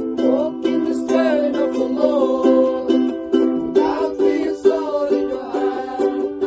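Music with a steadily strummed string instrument keeping a regular rhythm.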